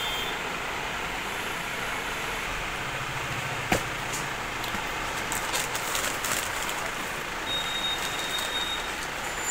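Paper and cardboard rustling and crinkling as slippers are handled in their boxes, with a single sharp click a little over a third of the way in, over a steady background hiss.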